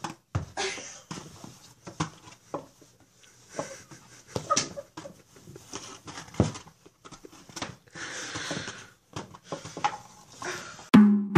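Scattered soft knocks and scuffs as a cat with a hollowed pumpkin stuck over its head blunders about on a cushion, with a few breathy noises in between.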